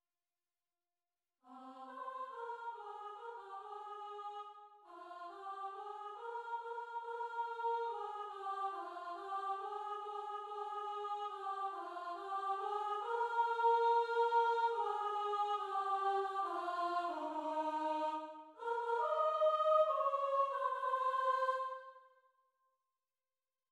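Soprano part of a choral anthem sounded alone in a choir-like voice, with no accompaniment: a single melody line in phrases that starts about a second and a half in, breaks briefly near 5 s and again near 18 s, and stops shortly before the end.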